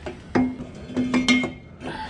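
Steel 4-into-1 extractor pipes knocking against the car's underbody and each other as they are worked into place. There are a few sharp metallic clanks, each ringing on briefly with a pitched tone.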